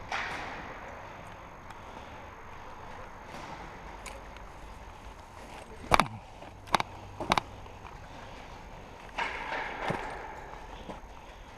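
Rustling movement with three sharp snaps in quick succession a little past the middle, the first the loudest, then a longer rustle near the end.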